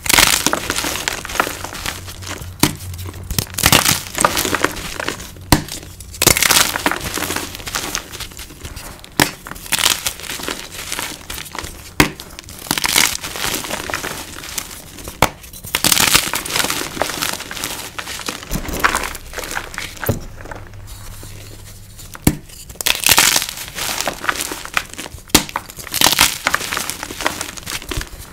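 Hands crushing soft, crispy freshie blocks (gym chalk blocks) coated in neon powder: repeated crunching and crumbling with sharp little cracks. There is a short lull about two-thirds of the way through.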